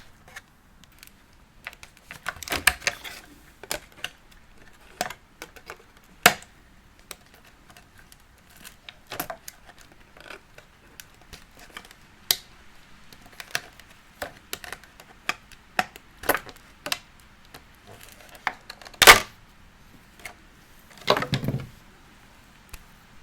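Hands handling a plastic doll and its packaging: scattered light clicks and taps of hard plastic, a sharper click about nineteen seconds in, and a brief rustle near the end.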